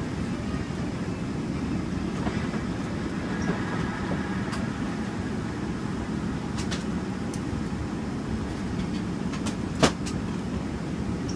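Steady low rumble of a Boeing 777-300ER's cabin, from its engines and air system, with a few faint clicks and one sharp click just under ten seconds in.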